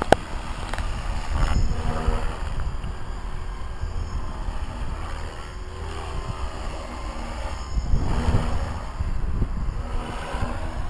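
Blade 360 CFX electric RC helicopter in flight at low head speed: the whir of its rotor blades swells and fades as it turns and flips, louder about a second and a half in and again about eight seconds in. Wind rumbles on the microphone underneath.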